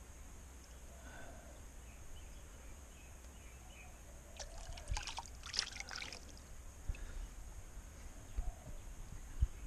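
Water splashing and trickling in a short flurry of about two seconds midway, as the sluice concentrates are washed during the gold clean-up; otherwise a faint steady outdoor background.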